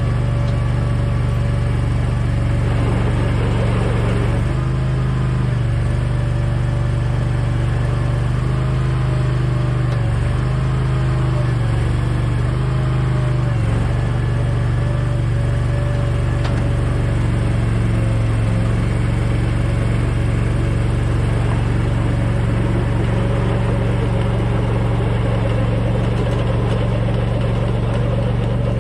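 Struck Magnatrac 7000 mini-dozer's engine running steadily under throttle while it drags a chained log. Its pitch dips briefly several times in the first half as the engine bogs under the load.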